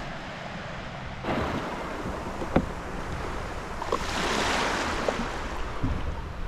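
Sea water splashing and washing around a kayak, swelling louder near the middle, with a sharp knock about two and a half seconds in.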